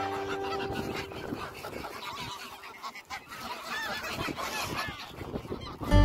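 A large flock of greylag geese calling, many short honks overlapping in a continuous chatter.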